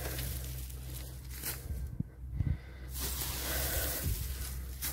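Straw and garden waste rustling as they are tipped from a wheelbarrow into a trench, with a couple of soft knocks about two seconds in.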